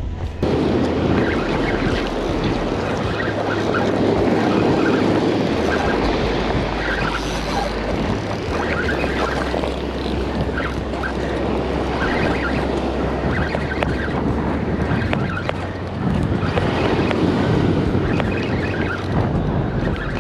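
Surf breaking and washing up a stony beach, swelling and easing, with wind buffeting the microphone.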